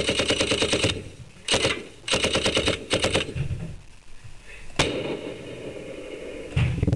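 Machine-gun fire sound effect: rapid rattling bursts, four in the first three seconds, then a single sharp crack with a lingering ring after it and a dull thud near the end.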